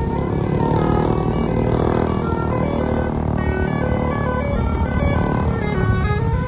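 Bus telolet horn (basuri type) playing a tune of stepped notes, with the bus's low rumble underneath.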